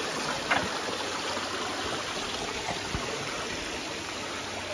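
Shallow stream running over rocks and boulders, a steady rushing of water, with a soft thump about three seconds in.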